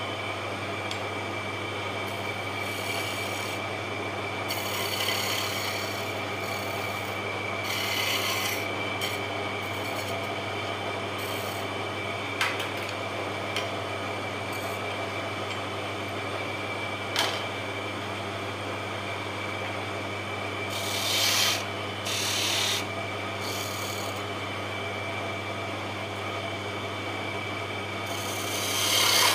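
Wood lathe running with a steady hum while a turning chisel is held to the spinning wooden spindle in several short passes, each a brief scraping hiss. Two sharp ticks come between the cuts.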